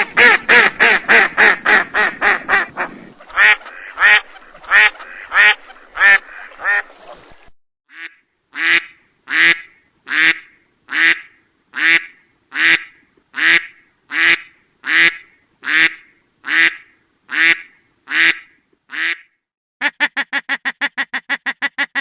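Ducks quacking in a string of separate recordings. First comes a rapid series of quacks over a faint hiss, then slower quacks. A long run of single loud quacks follows, evenly spaced less than a second apart, and near the end a fast rattle of quacks, about six a second.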